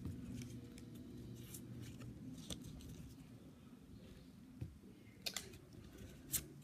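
Pokémon trading cards being handled and flipped through, the cards sliding against each other with a few sharp snaps in the second half.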